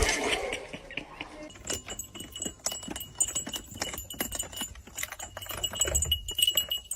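Rapid irregular clicking and rattling, with a thin steady high tone joining in about two seconds in; it cuts off abruptly at the end.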